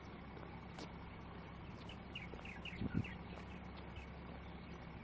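Outdoor harbour ambience: a steady low rumble of background noise, with a few short bird chirps about two seconds in and a brief low thump near three seconds.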